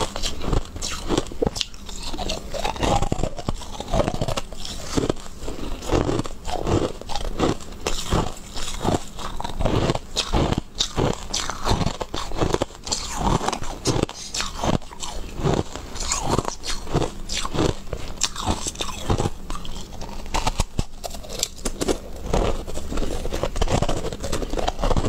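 Close-miked biting and crunching into hard white balls, with chewing: a dense run of crisp, irregular crunches, several a second.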